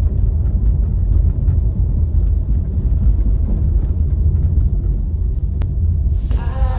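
Car driving: a steady, low rumble of road and wind noise. Music comes in near the end.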